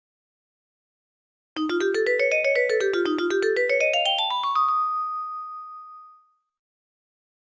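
Fujitsu F-09A mobile phone ringtone: about a second and a half in, a quick run of short notes starts, climbing in pitch in waves, and ends on one held high note that fades out.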